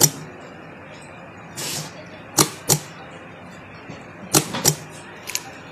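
Pneumatic thread-trimming cutter snapping its air-driven blade shut and open: sharp paired clicks about a third of a second apart, repeated about every two seconds, with short hisses of compressed air.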